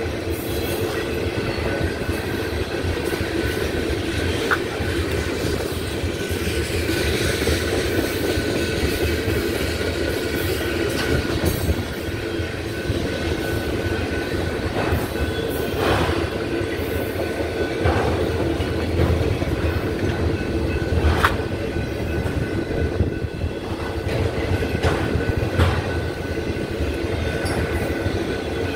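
Freight train cars rolling past: a steady rumble of steel wheels on rail from tank cars and autoracks, with scattered sharp clicks and clanks.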